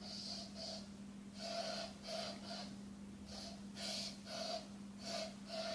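Mortein aerosol insect spray hissing in short bursts, heard faintly from outdoors, often about two bursts a second in uneven runs. A faint steady hum runs underneath.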